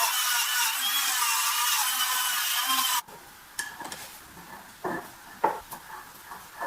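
Workshop tool noise from restoring an antique sewing machine: a steady, hissing abrasive sound with a wavering whine, cutting off suddenly about three seconds in. It is followed by a few light clicks and knocks of parts being handled.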